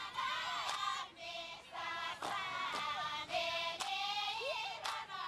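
A group of women singing a dance chant together, with sharp claps cutting in about once a second.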